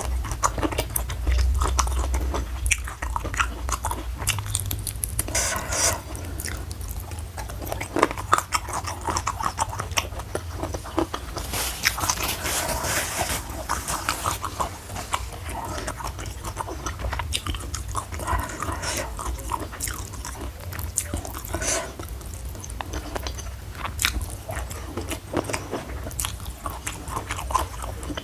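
Close-miked chewing and biting of food, with irregular crunches and mouth clicks throughout.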